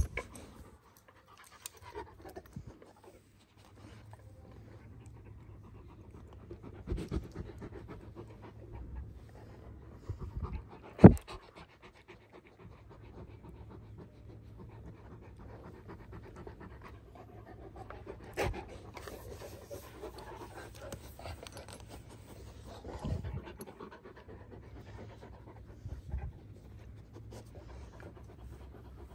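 Young Kangal dogs panting at close range, with a few short knocks, the loudest about eleven seconds in.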